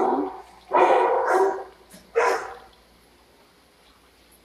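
A dog barking in a shelter kennel, four barks in the first couple of seconds, each with a short echo.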